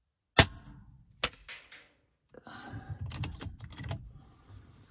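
A single shot from a regulated .22 PCP air rifle, the RTI Prophet Performance: one sharp crack about half a second in. A fainter click follows about a second in, then a run of small clicks and low rustling as the rifle is handled.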